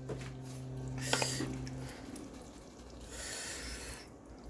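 Spoon scraping and knocking against a cooking pot while curry chicken is dished out, with a few sharp clicks early and a longer rasping scrape about three seconds in. A steady low hum stops about two seconds in.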